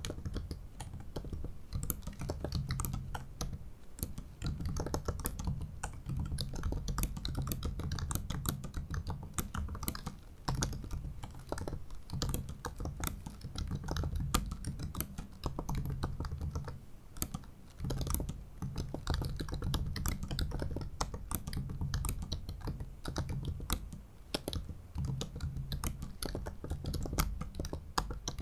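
Typing on a 2017 MacBook Pro 15-inch's built-in butterfly-switch keyboard: a fast, continuous stream of light key clicks, with a few brief pauses.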